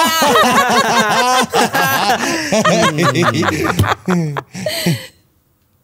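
Hearty laughter from more than one voice overlapping, falling away and stopping about five seconds in.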